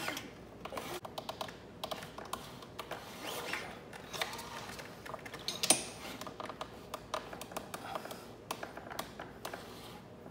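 Scattered small metallic clicks and scrapes of a wrench working the rocker-arm adjusting nuts on a Honda GCV160/GCV190 engine's valve train, with one sharper click a little past the middle.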